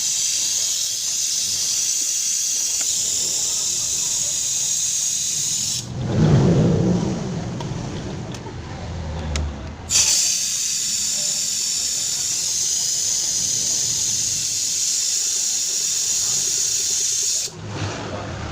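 A pressurised jet hissing in two long blasts of about seven seconds each, typical of compressed air or cleaner spray used during a tune-up. In the short break between them there is a brief low rumble.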